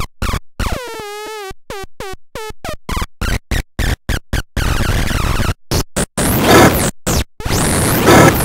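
Micro Noise Synth #8, a handheld battery-powered noise synth, playing its washy sample as the button is held and the knob twisted. The sound comes in stuttering bursts that cut off abruptly, with warbling tones gliding downward about a second in. From about six seconds it becomes a denser, continuous noisy wash with sweeping high tones.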